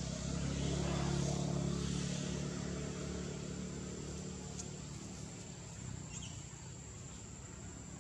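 A passing motor vehicle's engine: a low hum that swells over the first two seconds, then slowly fades away.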